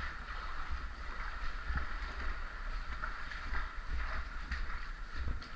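Feet wading and splashing through shallow cave water, an uneven run of sloshing steps over a steady low rumble.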